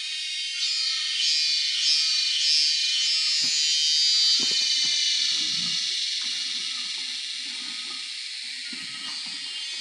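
Loud, steady high-pitched drone of a cicada chorus, pulsing in the first few seconds. From about three and a half seconds in come footsteps on dry leaf litter and the rustle of a tarp and bag being handled.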